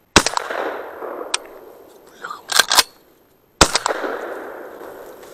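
Two shotgun shots about three and a half seconds apart, each echoing and fading over more than a second. Between them come a few sharp metallic clacks of the action being worked by hand, as the semi-automatic is not cycling its light 28-gram loads.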